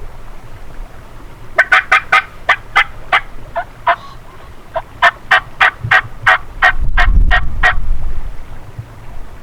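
Two runs of turkey yelps, a string of short, evenly spaced notes about four a second, with a pause of about a second between the runs. Wind buffets the microphone with a low rumble about seven seconds in.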